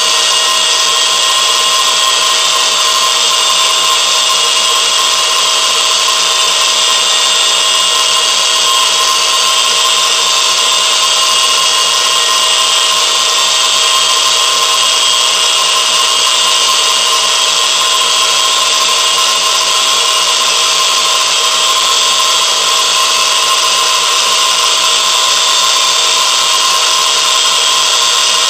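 Steady, loud machine whirring with several constant whining tones over a hiss, unchanging throughout.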